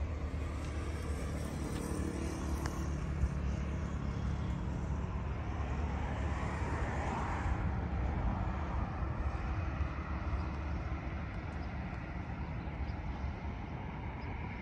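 Steady low rumble of road traffic. One vehicle passes, swelling and fading about halfway through.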